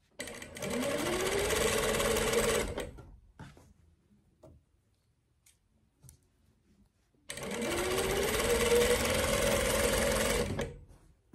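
Mitsubishi industrial sewing machine stitching fabric in two runs of about three seconds each, its pitch rising as it speeds up at the start of each run and then holding steady. A few faint clicks fall in the pause between runs.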